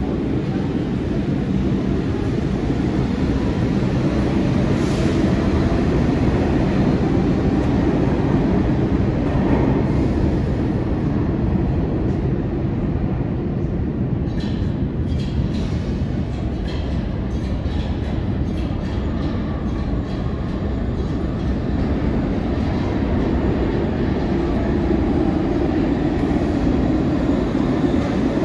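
New York City subway trains running through an underground station: a steady low rumble on the tracks, with a run of sharp clicks in the middle, and a 6 train pulling in near the end.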